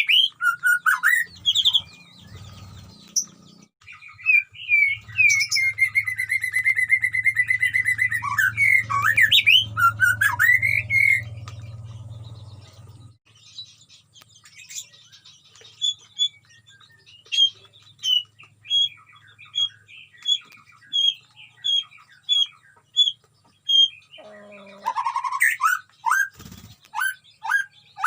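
White-rumped shama singing: varied loud whistled phrases with gliding notes, then quieter scattered notes, and a quick series of short repeated notes near the end.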